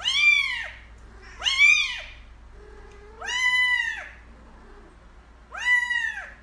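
A cat meowing four times in long, drawn-out calls, each rising and then falling in pitch, with a short pause between them.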